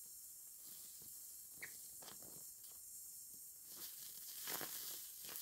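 Welding torch hissing faintly and steadily while a filler rod is fed into the weld on a steel car body panel, with scattered small pops and crackles from the puddle, busiest about four seconds in.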